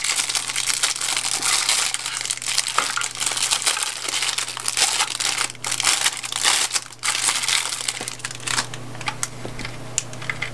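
Thin clear plastic bag crinkling and crackling as it is peeled off a small plastic toy house. The crinkling thins out in the last couple of seconds, leaving a few light clicks.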